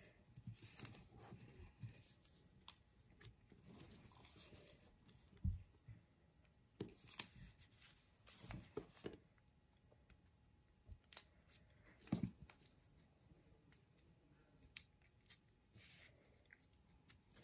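Faint, scattered rustles and small clicks of origami paper being folded, creased and tucked by children's fingers on a tabletop.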